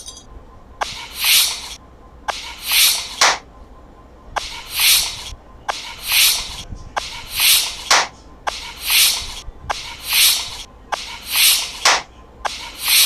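Repeated rhythmic rubbing or scraping strokes, each a hissing swell lasting under a second, about ten in all, with short sharp clicks between some of them.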